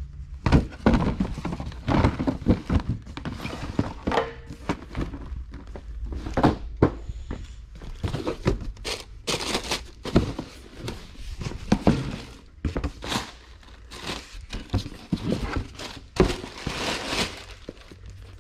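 Cardboard shoe boxes being handled and stacked: irregular thunks and knocks, with stretches of rustling between them.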